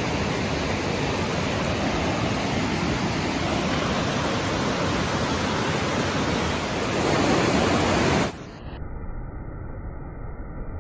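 Rushing white water of a mountain creek and waterfall: a steady, loud rush. About eight seconds in it cuts off abruptly to a quieter, muffled rush.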